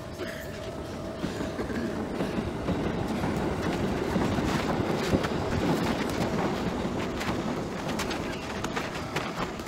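A train passing along the tracks with wheel clatter, growing louder, loudest mid-way, then fading toward the end.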